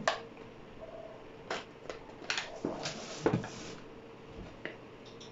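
Kitchen handling sounds: a knock, then scattered rustles and clicks as flour is poured from a plastic bag into a steel measuring cup and the cup is lifted.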